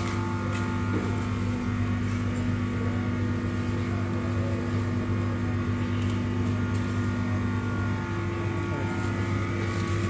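Steady mechanical hum of a running engine, with a slight shift in its tone about eight seconds in.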